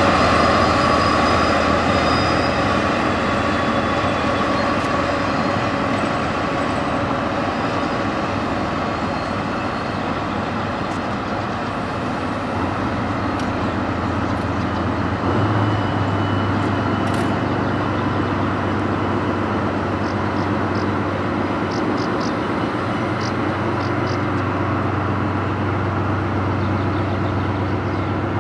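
Diesel engine of a DR1A diesel multiple unit running steadily as the train pulls away and recedes. The sound fades slightly at first, then the low drone grows noticeably stronger about halfway through.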